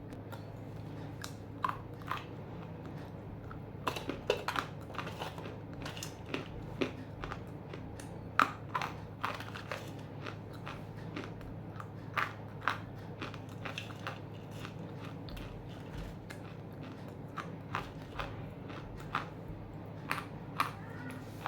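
Hard, half-roasted Nakumatt edible clay chunks being bitten and chewed: sharp, irregular crunches, a few to several a second at times, over a steady low hum.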